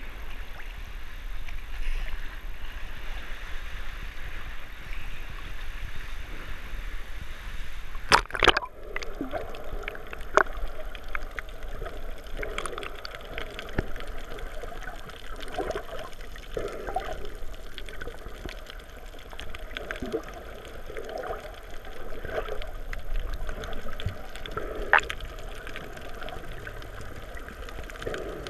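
Sea water lapping and sloshing in a rock cave, heard at the surface. About eight seconds in there is a sharp splash as the camera goes under, and after that the sound is muffled underwater water noise with short bubbling spots and scattered clicks.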